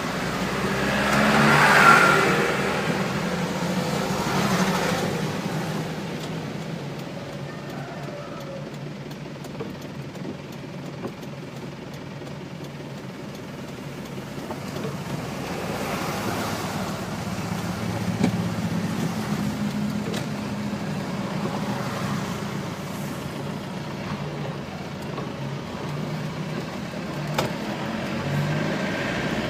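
Vehicle engine running steadily, heard from inside the cab while driving on a wet road, with tyre hiss. An oncoming vehicle swishes past loudly about two seconds in, and more traffic passes midway.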